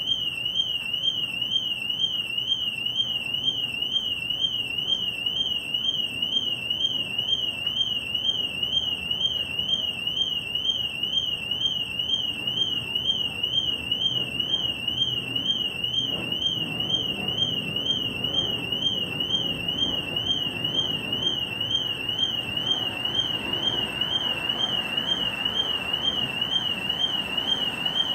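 Car alarm siren going off: one loud high tone warbling rapidly up and down, about two cycles a second. It starts abruptly and cuts off abruptly after about 28 seconds.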